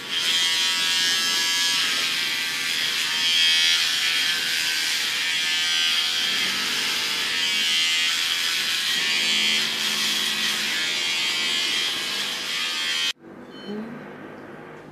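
Electric pet hair clipper buzzing steadily as it shaves a dog's belly fur, then switched off abruptly near the end.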